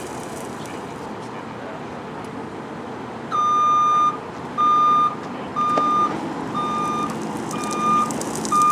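Fire department paramedic ambulance's back-up alarm beeping as it reverses: a steady high beep repeating about once a second, starting about three seconds in, over the low running of the truck's engine.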